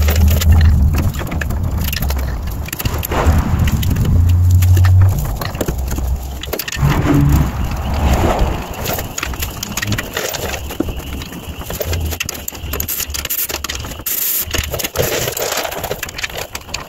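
Metal clinks, knocks and scraping of hand work on a car's rear wheel hub as the new wheel bearing hub assembly is cleaned up, fitted and bolted in. A steady low hum runs through the first five seconds.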